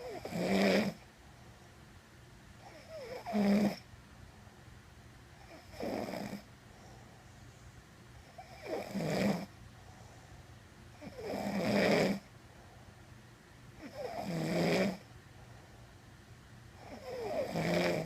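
A sleeping woman snoring in a steady rhythm: seven snores, about one every three seconds, each lasting around a second.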